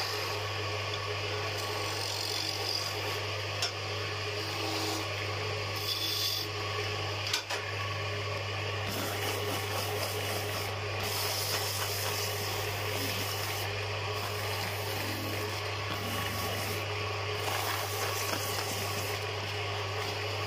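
Wood lathe running with a steady low hum while sandpaper is held against the spinning wooden spindle, a continuous rasping rub. One sharp click about seven seconds in.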